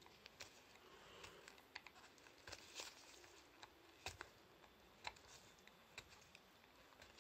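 Near silence broken by faint, scattered small clicks and light rustling: gloved hands handling a small nail-gel pot.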